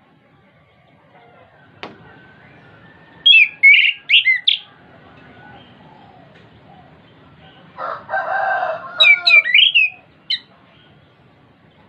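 Chestnut-capped thrush (anis kembang) singing: a quick run of high whistled notes about three seconds in, a lower, rougher call about eight seconds in, then another run of high whistled notes ending with a short note near ten seconds.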